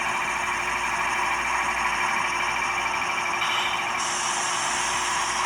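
Sound-decoder recording of a GE GEVO diesel engine playing through the small onboard speaker of a model ET44 locomotive, running while the locomotive stands still and being throttled up from idle; the tone steps up about four seconds in.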